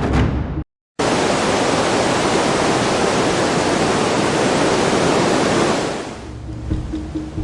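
Music cuts out for an instant, then a loud, steady rushing hiss runs for about five seconds. It fades out as percussive music comes back near the end.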